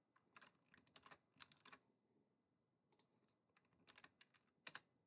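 Faint computer keyboard typing: two short runs of keystrokes, the second ending in a sharper single keystroke near the end.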